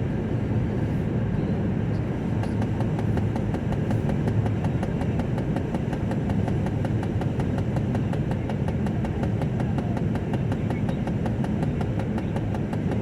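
Steady low rumble of a car's engine and tyres heard from inside the cabin while driving along the road. From a couple of seconds in there is a faint, fast, regular ticking, several ticks a second.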